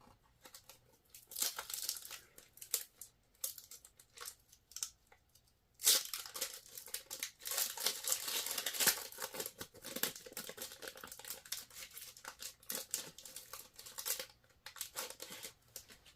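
A trading-card pack wrapper being torn open and crinkled, with the cards inside handled. Light rustling at first, then the loudest stretch of tearing and crinkling starts sharply about six seconds in and goes on in bursts for several seconds.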